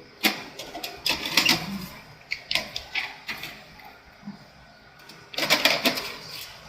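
Irregular clicks and knocks of plastic printer parts being handled as the paper tray is fitted back, with a busier clatter about five and a half seconds in.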